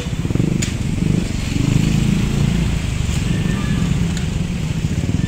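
Motorcycle engine running steadily while riding along a wet street, with a continuous low rumble of engine and road noise and a few short clicks.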